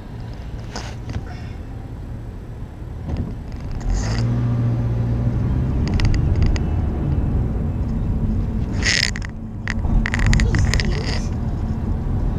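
Car engine and road noise heard from inside the cabin, growing louder about four seconds in as the car pulls away from a stop and drives on. A few short, sharp noises come near the end.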